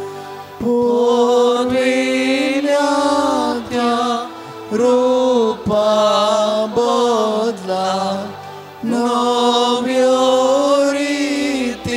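A slow devotional hymn: a voice singing long held notes in short phrases, over a steady sustained accompaniment.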